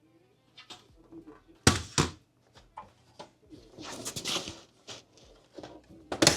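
Hands working on a desktop computer's case: a few sharp knocks and clicks, the loudest near the start and again near the end, with a short scraping, sliding noise about four seconds in.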